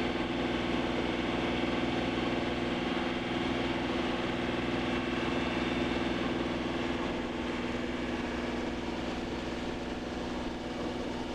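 Sailboat's inboard engine running steadily under way, a constant hum with no change in speed.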